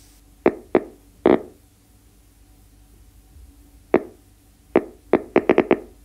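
About ten short, sharp knocks: three in the first second and a half, one a little before the middle, then a quick irregular run of six near the end, over a faint steady hum.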